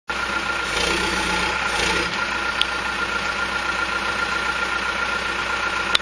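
John Deere backhoe's diesel engine running steadily, with a constant high whine over it. The engine grows louder for about a second starting near the one-second mark. There is a sharp click a little past two and a half seconds and another just before the end.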